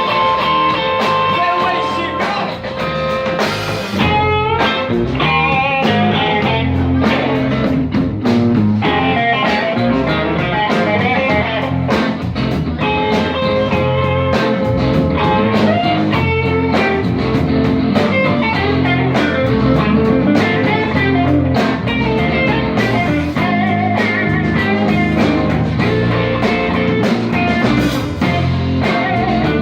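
Blues-rock band playing, with a guitar to the fore over bass and drums.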